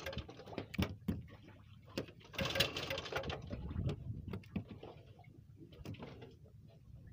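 Irregular clicks and light rattles from a spinning reel and fishing rod being handled as the rig is let down, with a louder burst of hissing and ticking about two and a half seconds in.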